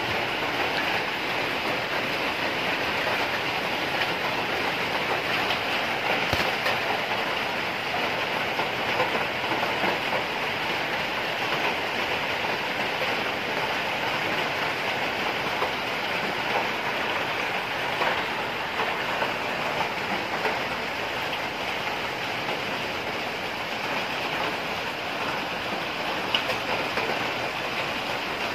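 Heavy rain falling steadily, a dense even wash of sound with scattered small drop impacts.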